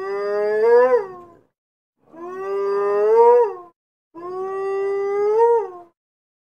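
Hyena calls from an animated film's soundtrack: three long, pitched calls in a row. Each is held, rises a little in pitch and drops off at its end.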